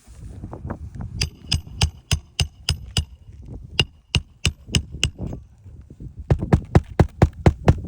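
Repeated hammer strikes at about three a second, many with a short metallic ring, then a faster run of about four a second near the end.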